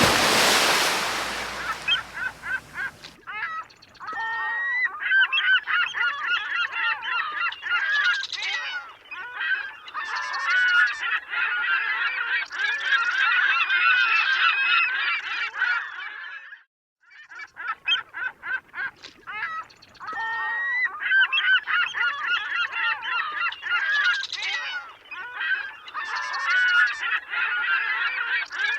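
Sound effect of a large flock of birds calling, many overlapping calls at once, with a short break about halfway through. It opens with about three seconds of loud rushing noise, like surf.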